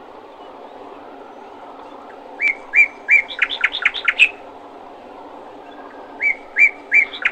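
A songbird singing a short phrase twice: a few spaced chirps followed by a quicker run of higher notes. The second phrase begins near the end. Under it runs a steady low background noise.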